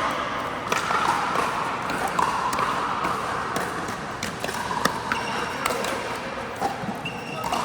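Pickleball paddles striking the plastic ball and the ball bouncing on an indoor court floor: irregular sharp pops and knocks about once a second over steady background noise.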